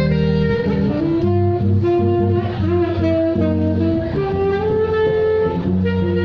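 Live acoustic jazz: a saxophone plays a melody of held notes over a plucked bass line.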